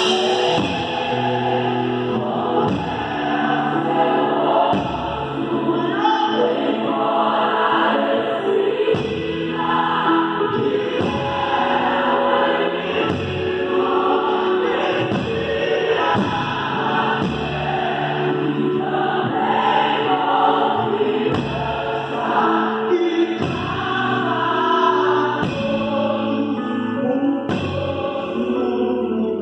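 Live gospel worship music: a group of voices singing together over a band, with a drum kit played with sticks and an electric guitar.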